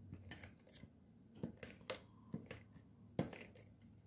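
Stampin' Seal tape runner pressed and run along a cardstock panel to lay adhesive strips: a series of faint clicks and taps, about eight over four seconds.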